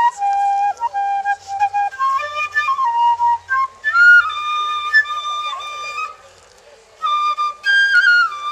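Side-blown flute playing a slow melody of held notes stepping up and down, breathy at the start. The playing stops for about a second some six seconds in, then resumes.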